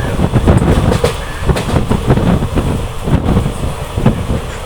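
Passenger train running on the track: a steady low rumble with irregular clacks and knocks of the wheels over the rails.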